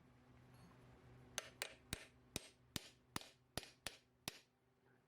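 About nine faint, sharp metallic taps, two to three a second, each with a brief ring: light hammer taps on steel.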